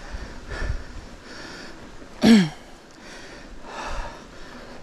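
A cyclist panting heavily as he strains up a steep climb, with one loud grunt falling in pitch a little over two seconds in.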